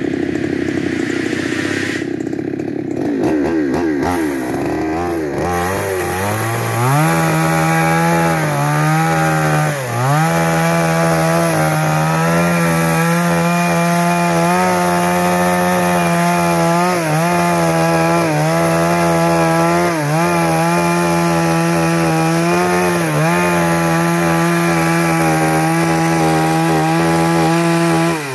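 Chainsaw ripping lengthwise through wood. The engine climbs to high revs over the first several seconds, then runs at a steady high pitch, with brief dips in speed each time the chain bites harder into the cut.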